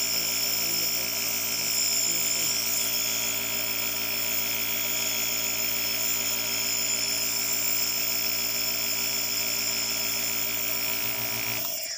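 Nebulizer compressor running with a steady hum, driving mist into a face mask, then cutting off suddenly near the end.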